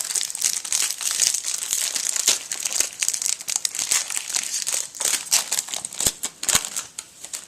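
Wrapper of a baseball card pack crinkling and tearing as it is opened and handled: a dense run of crackles and small clicks that thins out near the end.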